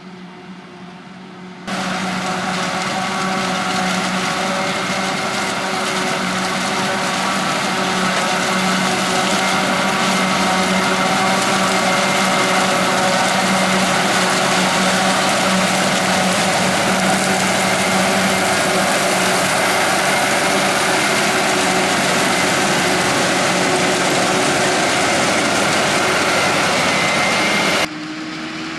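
Heavy farm machinery running steadily under load at high revs: a constant engine hum with a dense hiss over it. It starts abruptly a couple of seconds in and cuts off abruptly near the end.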